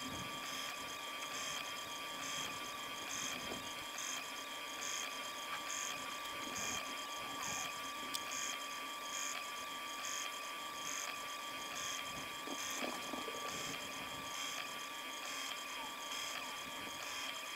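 Prusa Mini+ 3D printer running: a steady whir of motors and fans with several held tones and a soft pulse about every two-thirds of a second.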